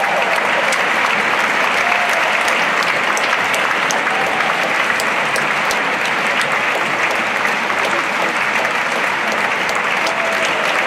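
Theatre audience applauding steadily: the ovation of a curtain call.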